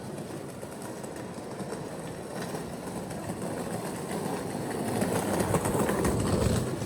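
Street noise with a motor vehicle passing close by, its rumble growing louder over the last few seconds and then falling away.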